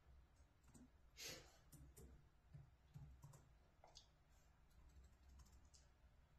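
Near silence: quiet room tone with a few faint scattered clicks and one short breathy hiss about a second in.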